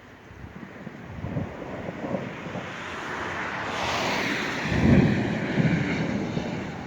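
Rolling thunder from a lightning storm, a rumble that builds over several seconds to its loudest about five seconds in.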